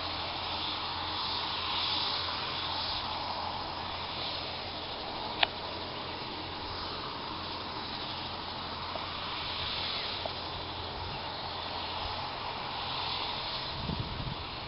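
Gendarmerie helicopter on the ground with its engine running, a steady hiss. A sharp click comes about five seconds in.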